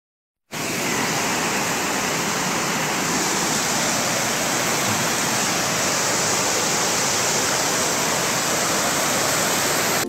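Steady rush of a waterfall cascading over rocks, cutting in after a half-second gap of silence at the start.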